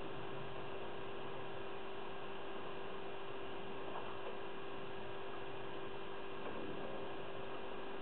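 Steady electrical hum and hiss, with a couple of very faint clicks from a pick working the discs inside a 7-disc padlock.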